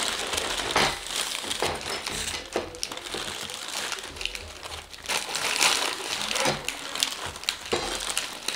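Paper deli bag and wrapping crinkling and rustling as it is unfolded by hand, with the clear plastic film around the sliced ham crackling as it is opened near the end.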